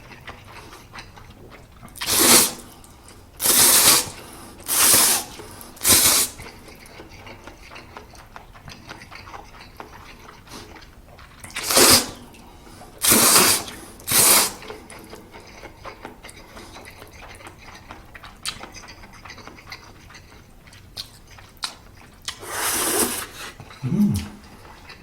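A person slurping spicy Buldak stir-fried noodles close to the microphone: loud, short slurps, in quick groups of two to four with pauses between, and faint chewing clicks in the gaps.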